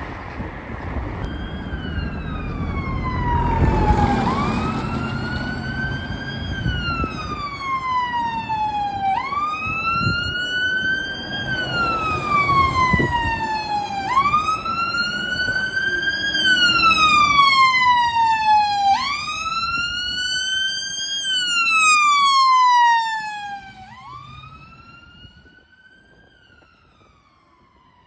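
Emergency vehicle siren on a slow wail, its pitch rising quickly and falling more slowly in a cycle of about five seconds, over road and engine noise. The siren drops away sharply about 23 seconds in and carries on faintly.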